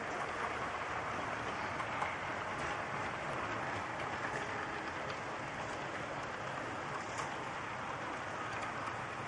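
HO-scale model freight cars rolling past on track, their wheels making a steady, even rolling hiss with a few faint clicks.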